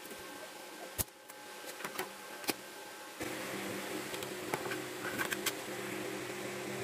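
Light clicks and taps of printed circuit boards being handled on a wooden workbench. A steady hum sets in abruptly about three seconds in.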